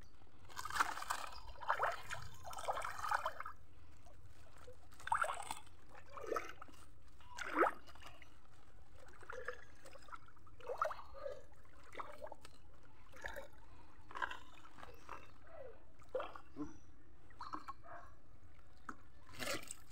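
Shallow river water splashing, dripping and trickling in small irregular bursts around a fishing net being checked.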